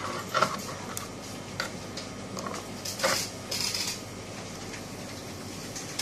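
Plastic clicks and knocks as electrode lead plugs are pushed into the front sockets of a TENS and muscle stimulator unit, with the cables rustling. There are a few separate clicks in the first three seconds and a short rustle about three and a half seconds in.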